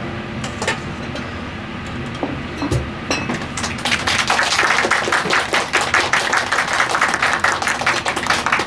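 Small audience applauding at the end of a song: a few scattered claps at first, then steady clapping from about four seconds in.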